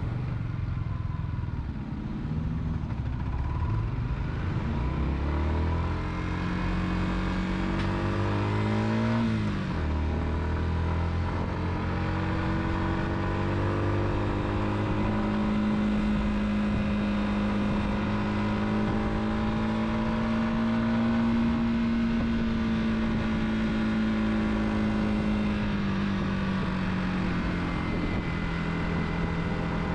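Car engine running while driving, with road and tyre noise. Its pitch climbs, drops abruptly about nine seconds in at a gear change, then rises slowly and eases off again near the end.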